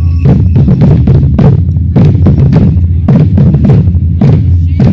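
Batucada samba percussion group playing a loud, driving groove: deep bass drums under fast, sharp drum strikes.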